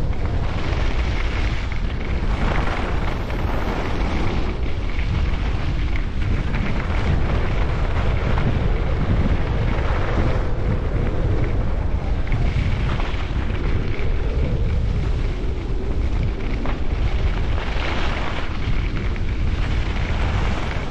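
Heavy wind rumble on the microphone of a skier going downhill at speed, with swells of ski edges scraping on the snow every few seconds as he turns.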